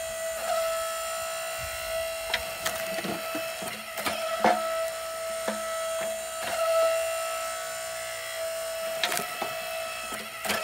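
Split-Fire 1165 electric log splitter's motor running with a steady whine while its ram pushes hickory chunks against the wedge. The wood cracks and splits with sharp snaps several times, loudest about four and a half seconds in.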